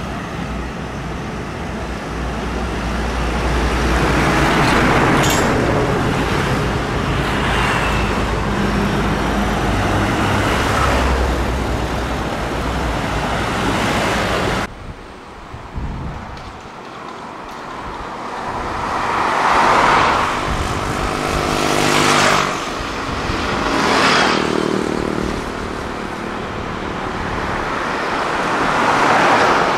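Heavy diesel trucks passing on a road, engines running, with tyre and road noise swelling and fading as each goes by. The sound drops away suddenly about halfway through, then several more vehicles pass one after another.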